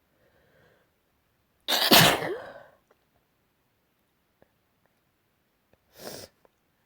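A loud sneeze about two seconds in, preceded by a faint intake of breath, followed near the end by a second, much shorter and quieter burst.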